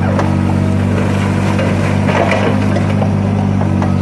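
Tata Hitachi mini excavator's diesel engine running steadily under load as its arm and bucket churn waterlogged soil, with a few faint clanks.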